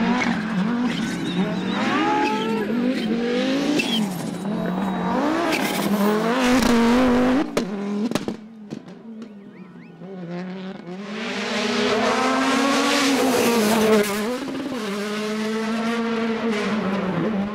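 Rally car engines revving hard, pitch rising and falling with throttle and gear changes, with tyre squeal. The sound drops away briefly about eight seconds in, then a car comes through loud again about three seconds later.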